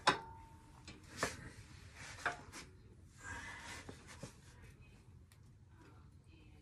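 A few sharp clicks and knocks, the loudest right at the start, and a short rub about three seconds in, as a motorcycle rear shock absorber is handled and lined up with its lower mounting stud.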